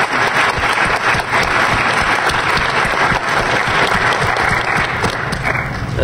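A large audience applauding, with dense, steady clapping that dies down near the end.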